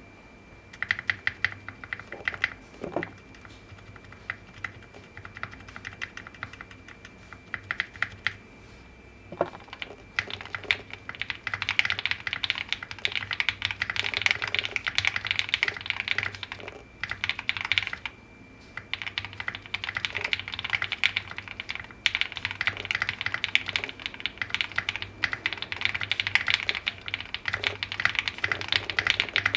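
Typing on a QK65 mechanical keyboard with a POM switch plate: quick runs of key clacks, sparse at first and then fast and near-continuous from about a third of the way in, broken by short pauses.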